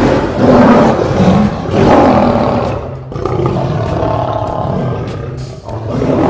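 Male African lion roaring: two loud roars in the first two and a half seconds, then a quieter, longer call, and another roar starting near the end.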